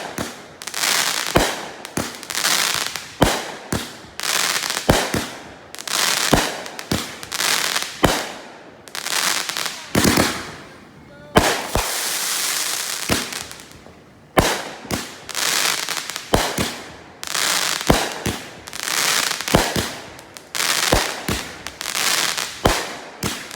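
Fireworks going off in quick succession, with sharp bangs about one or two a second, each followed by a crackling hiss. Just past halfway there is a short lull, then a longer run of continuous crackling.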